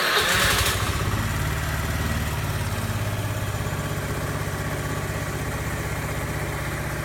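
Honda Lead scooter's single-cylinder four-stroke engine, just started cold for the first time that day, running louder for about the first second and then settling into a steady idle. It starts this time without the occasional crack at start-up.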